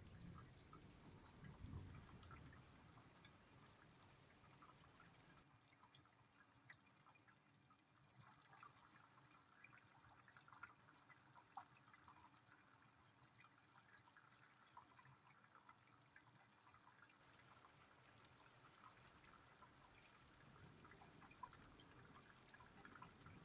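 Faint rain: light patter with scattered small drips.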